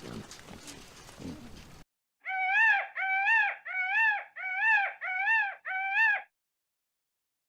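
An animal giving six short, high-pitched cries in quick succession, each rising and then falling in pitch, after a brief low rustle.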